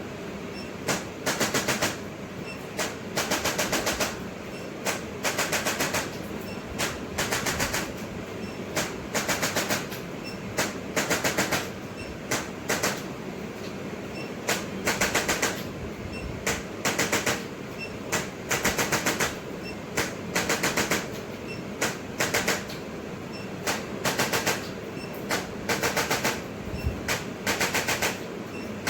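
Short bursts of rapid mechanical tapping, each about half a second to a second long, repeating every second or two over a steady background hiss.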